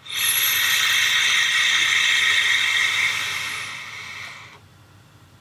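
Long inhale through a Vapeston Maganus DVC sub-ohm tank: a steady airy hiss of air drawn through its wide-open airflow, tapering off and stopping about four and a half seconds in.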